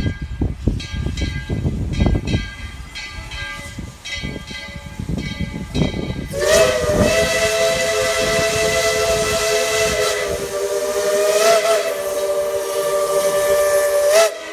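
Steam locomotive whistle blowing one long, steady chord of several notes for about eight seconds, starting about six seconds in and cutting off sharply near the end. Before it, irregular low puffs of steam from the locomotive.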